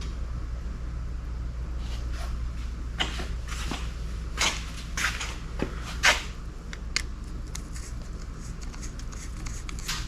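Small outboard engine parts being handled by hand: a string of light clicks and scrapes, over a steady low hum.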